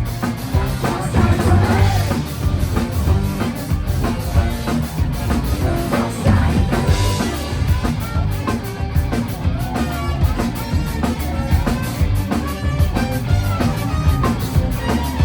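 Live band playing a rock song, with drum kit and guitar.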